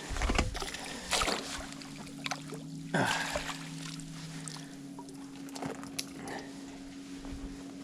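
A small pike being landed and handled in a fishing boat: scattered knocks and light splashes, the strongest about three seconds in, over a steady low hum.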